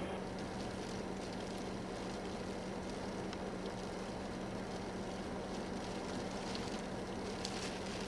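Steady rush of strong blizzard wind driving snow, with a low constant hum underneath and a few faint ticks.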